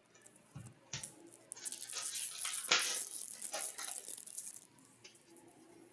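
Foil trading-card pack wrapper crinkling and tearing as it is handled and ripped open, in a run of crackles lasting about three seconds.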